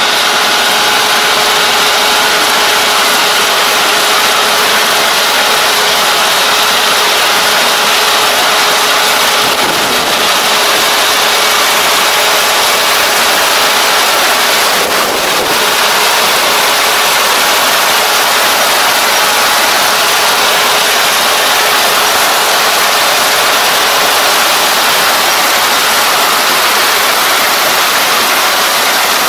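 ER470 combine harvester running steadily as it cuts and threshes lodged rice: engine and machinery noise with a steady whine over it.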